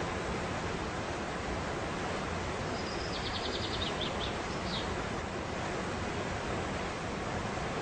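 A waterfall's steady rush of falling water. About three seconds in, a small bird gives a short, high, rapid trill ending in a few separate notes.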